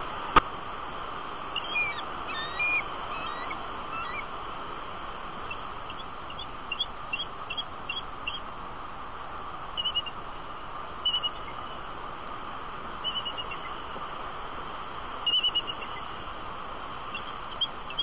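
Bald eagles calling: short, high, thin chirping calls in quick runs and pairs, the agitated calling of adults upset by another bird soaring near their nest. A steady hiss lies under the calls, and one sharp click comes about half a second in.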